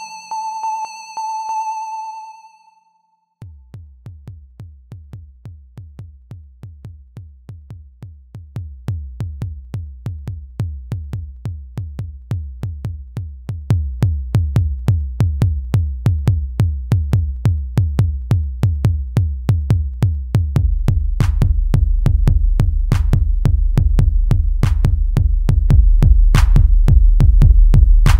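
Electronic dance music: a held synth tone fades out, then after a brief gap about three seconds in, a steady drum-machine kick beat enters and builds, getting louder in steps, with deep bass filling in about two-thirds of the way through.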